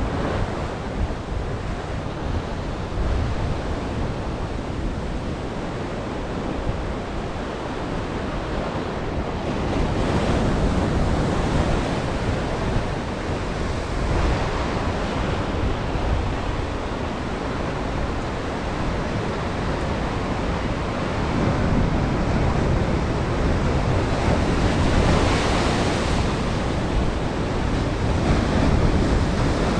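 Ocean surf washing against the shore, a steady rush that swells louder about ten seconds in and again near the end, with wind buffeting the microphone.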